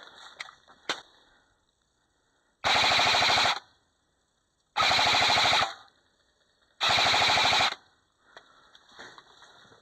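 Airsoft gun firing three full-auto bursts, each just under a second long and about two seconds apart, each a rapid rattle of shots.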